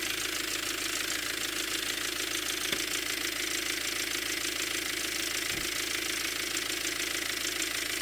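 Volkswagen Passat 2.0 TDI diesel with a DSG gearbox idling, with a steady shuffling noise and light crackle from the flywheel and gearbox area. The noise persists after a new LuK flywheel was fitted.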